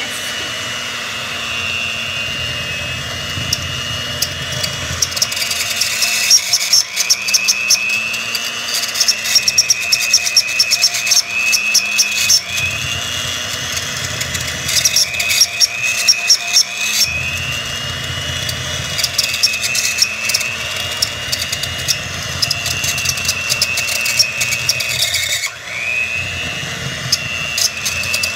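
Electric hand mixer running with its beaters in brownie batter in a plastic bowl. The motor's high whine sags in pitch and recovers several times as the batter loads the beaters, with runs of clattering clicks.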